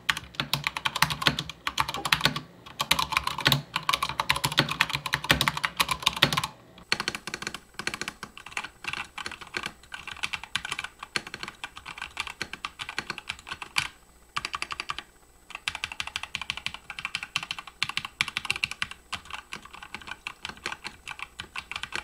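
Rapid typing on a Corsair K100 mechanical keyboard, first with its stock Cherry MX Silver linear switches. About six and a half seconds in, the typing changes to the same keyboard fitted with lubed Drop Holy Panda tactile switches, a quieter, thinner clatter with a short pause partway through.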